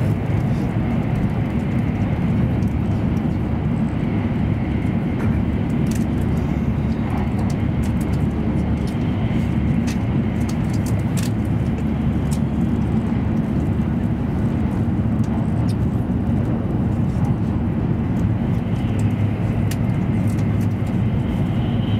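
E7 series Shinkansen running at speed, heard from inside the passenger cabin: a steady low rumble and rushing noise, with faint scattered ticks.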